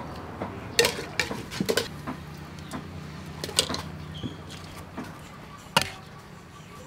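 Stainless steel colander and metal cookware knocking and clinking as they are handled and set down: several sharp clinks, the loudest near the end.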